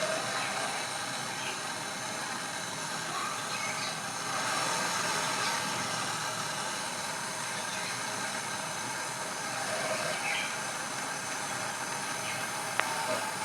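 Steady hissing of gas during a refrigerator pipe repair, with faint voices and a single sharp tick near the end.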